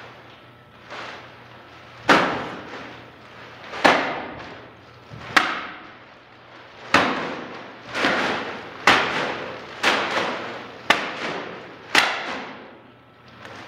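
Black plastic trash bags holding about 50 lbs of clay being thrown and slammed down onto a concrete floor. There are about nine heavy thuds, one every second or so from about two seconds in, each echoing and fading away.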